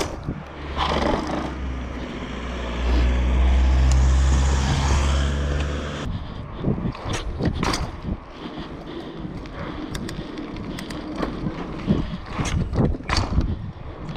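Mountain bike rolling along asphalt, heard through an action camera's microphone: wind buffeting and tyre noise, with a heavy low rumble for the first six seconds. After that the bike's parts click and rattle over the surface.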